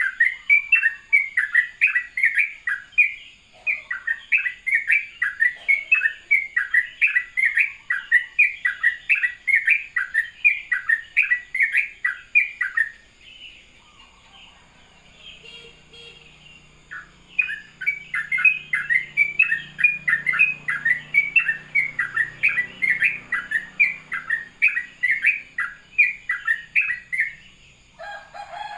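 Yellow-vented bulbul singing a fast run of repeated chattering notes, about three a second, breaking off for a few seconds midway and then starting up again.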